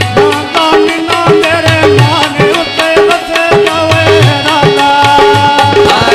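Live folk music: a harmonium playing held notes under quick, rapid hand-drum strokes, with a man's voice singing over them.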